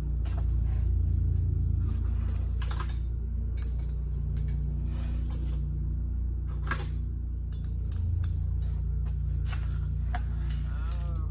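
Steady low hum of a running air compressor, with scattered sharp clicks and knocks of small metal parts and tools being handled.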